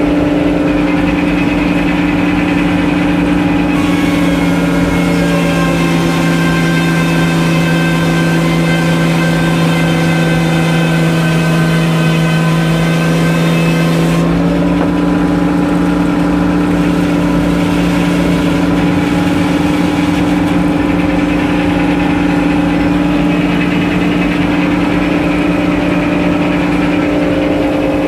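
The sawmill's engine running steadily. For about ten seconds near the middle its note drops slightly and a higher hiss joins in, then it settles back to its earlier steady running.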